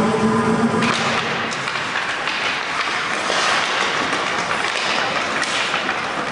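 Ice hockey skates scraping and cutting on the ice, with sticks and puck clacking in a scramble around the goal. The hiss of the blades builds from about a second in and is strongest in the middle.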